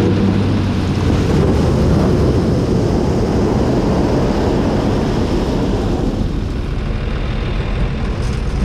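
A tractor engine running steadily under load while the tipped bunker of a Zmaj 222 corn picker pours its load of corn ears into a trailer, the cobs tumbling and rattling.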